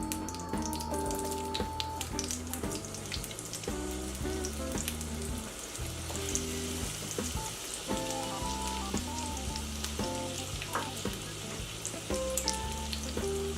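Onions frying in hot olive oil and butter in a skillet: a steady sizzle with scattered pops, over background music with sustained low notes.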